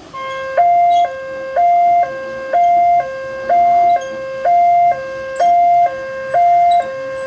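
Railway level-crossing warning siren: an electronic two-tone alarm that switches on at the start and alternates evenly between a lower and a higher tone, about one low-high cycle a second.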